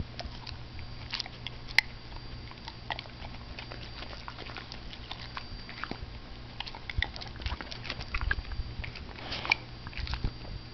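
Dog chewing broccoli: irregular crisp crunches and munching, the sharpest crunch a little under two seconds in, with busier bursts of chewing in the second half.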